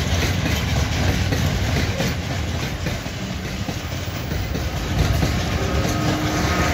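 Loaded freight train of covered hopper wagons rolling past with a steady low rumble and wheel clatter over the rail joints. Near the end a steady whine joins in as the rear Škoda electric locomotive goes by.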